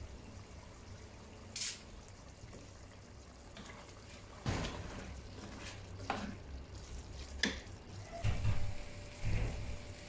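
Meat in a wet sauce bubbling and frying in a pan, stirred with a wooden spatula, with a short hiss and then several sharp scrapes and knocks against the pan, loudest near the end.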